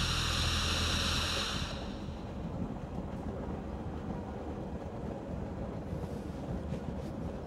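Steady rumble of a railway carriage running along the track, heard from inside the train, with a few faint clicks. A loud ringing sound at the start dies away within the first two seconds.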